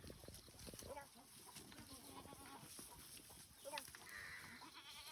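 Goats bleating faintly: a few short calls, one of them quavering.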